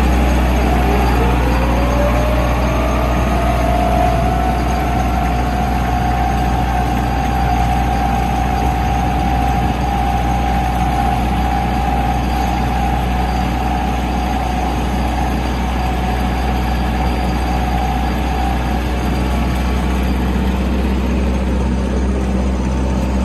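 Compact tractor engine running steadily while the tractor drives. Over it a whine rises in pitch over the first three seconds, holds steady, and fades out about four seconds before the end.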